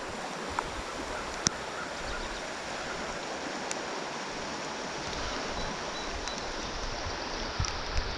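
Steady hiss of running water, with a couple of faint ticks.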